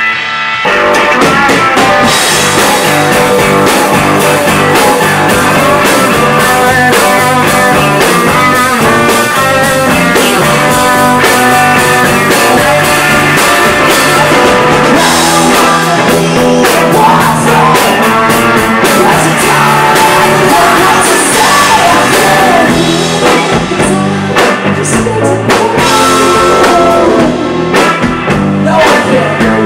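Live rock band playing: electric guitars and a drum kit, with a singer. The full band comes in after a brief dip right at the start and then plays on steadily and loudly.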